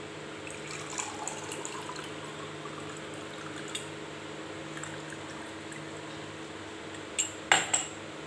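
Lemon drink poured through a steel mesh strainer into a glass, a steady soft trickle as the glass fills. A few sharp clinks near the end.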